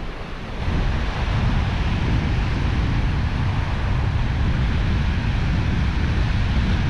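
Wind buffeting the microphone: a ragged low rumble that jumps up about half a second in and carries on, over a steady hiss of wind and surf.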